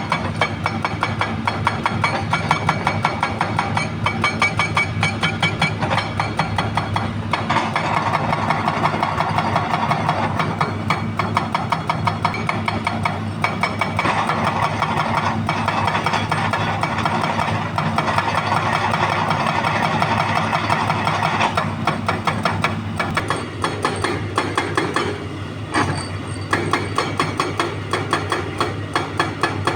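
Hydraulic breaker on a Hitachi Zaxis 200 excavator hammering rock in a rapid, regular beat over the excavator's steady engine, with a brief pause near the end.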